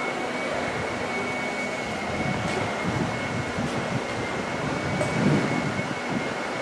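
A steady mechanical hum with a thin, high-pitched whine, with gusts of wind buffeting the microphone from about two seconds in.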